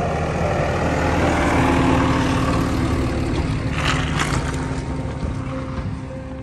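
Ram dually pickup with a truck camper driving past close by on a snowy track. Its engine runs with a low rumble and its tyres hiss on the snow, loudest about two seconds in as it draws alongside, with a brief rush of tyre noise around four seconds in as it goes by.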